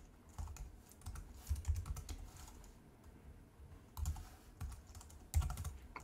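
Keys on a computer keyboard being typed in two short runs, with a pause of about a second and a half between them.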